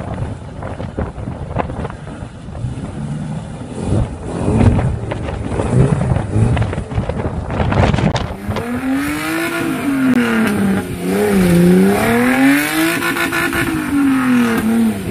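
Suzuki Samurai 4x4 engine labouring up a muddy bank, with wind buffeting the microphone. About eight seconds in, a second Suzuki Samurai's engine is revved hard, its pitch rising and falling several times as the driver works the throttle on the climb.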